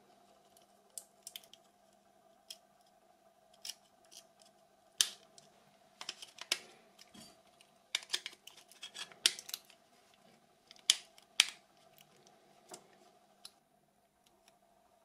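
Irregular sharp clicks and taps of a Nokia 6300 mobile phone being handled, its plastic shell and battery clicking as it is fitted and pressed, about twenty in all.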